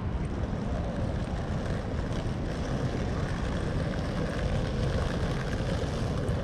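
Busy city street ambience: a steady low rumble of traffic and general street noise.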